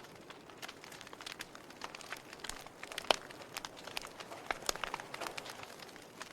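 Wood fire crackling: a steady low hiss of burning broken by irregular sharp snaps and pops, the loudest pop about three seconds in.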